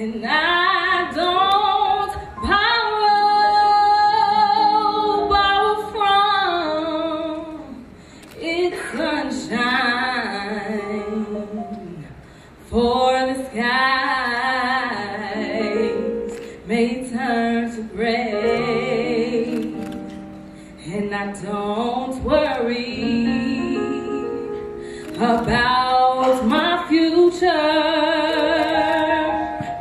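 A woman singing solo into a handheld microphone, holding long notes with vibrato, over steady instrumental accompaniment.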